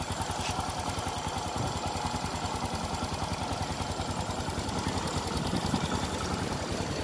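Honda Future Neo FI 125's fuel-injected single-cylinder engine idling with a steady, even beat. Its running is very quiet, the sign of a healthy, original engine.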